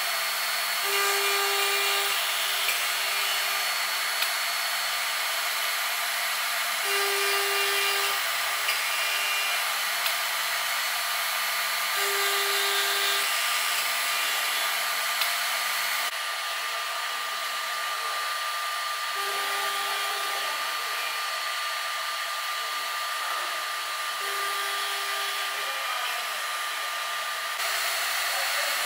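A Lee Hyun joinery machine's high-speed router spindle runs with a steady high whine as its straight bit cuts a row of slots into a solid-wood rail. A lower hum comes in for about a second, six times.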